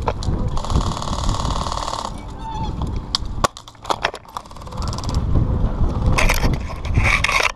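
Airsoft guns firing in rapid full-auto bursts, a fast even rattle of shots, broken by several sharp clicks and knocks, with two short noisy bursts near the end.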